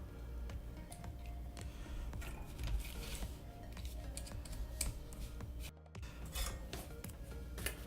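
Light clicks and taps of small tools and thin wires being handled on a workbench, over quiet background music.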